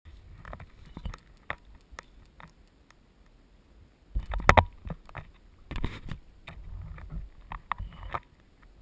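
Handling noise from a GoPro on a rope being swung over and lowered into a concrete well: a run of clicks, knocks and scrapes as it bumps the concrete rim, loudest about halfway through.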